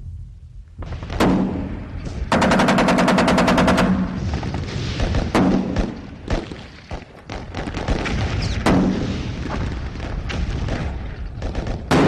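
Battle gunfire: a rapid machine-gun burst lasting about a second and a half, single heavy shots a second in, midway, past two-thirds and at the end, and scattered rifle shots over a low rumble.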